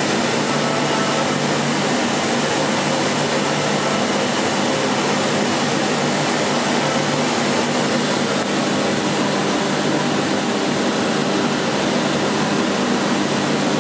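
Steady, unbroken hum and hiss of running machine-shop machinery, such as a CNC machining centre and its fans and pumps, with a few faint steady tones in it.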